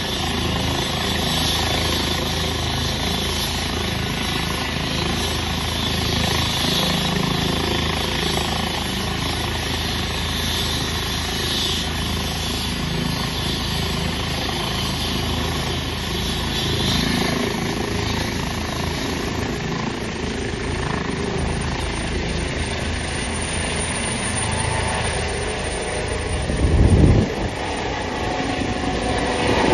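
Helicopter running with its main rotor turning and turbine whining, then lifting off and climbing overhead. Near the end comes a brief, loud low rush as it passes above.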